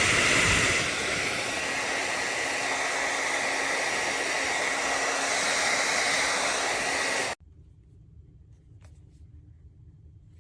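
Revlon Turbo ionic hair dryer running, a steady rush of fan and blown air that gets quieter about a second in. It switches off abruptly about seven seconds in, and a faint click follows.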